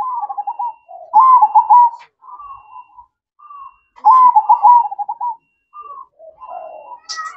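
Zebra dove (perkutut) cooing its trilled song: two loud phrases of rapid, rolling coos, each about a second long, with softer single coos between them.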